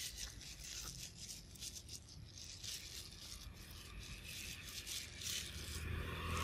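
Faint scratchy rustling made of many small irregular clicks, over a low steady rumble.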